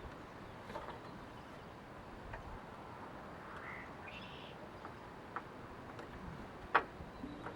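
A few faint clicks over a steady low background, with one sharper click near the end and a short high chirp around the middle.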